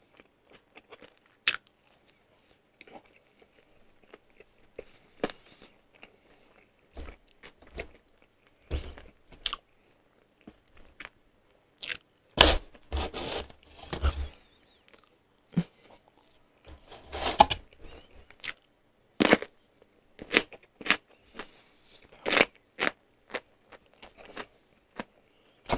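Close-mic chewing and smacking of potato wedges and crispy-coated fried chicken: irregular wet mouth clicks with small clusters of crunching bites.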